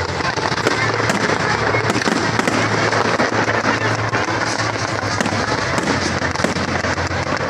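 Fireworks display: a dense, continuous crackle of many small overlapping pops and bangs, with music playing underneath.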